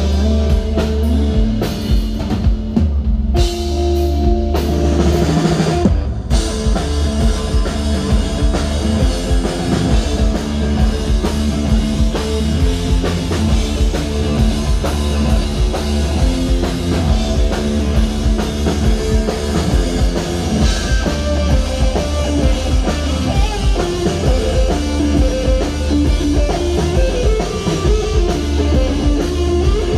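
Rock band playing at full volume: electric guitars, bass and a drum kit. A guitar riff leads the opening seconds, and the full kit with cymbals comes in about six seconds in.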